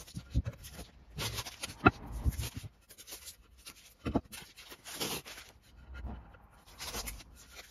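Masking tape being peeled off the edges of a painted oak sign in several short, irregular ripping pulls, with tape rustling and a few sharp taps as the board is handled.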